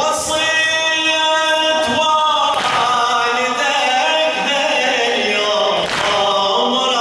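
A man chanting a Shia latmiya elegy unaccompanied into a microphone, in long held notes that bend and slide from one pitch to the next, with short breaths between phrases near three and six seconds in.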